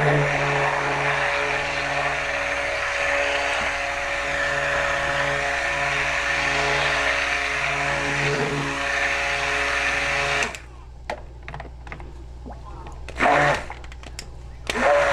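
Hand-held immersion (stick) blender running in a jug of cold-process soap batter of used cooking oil and lye solution, a steady motor hum for about ten seconds before it is switched off, then a brief pulse near the end. It is blending in short runs to bring the soap to light trace.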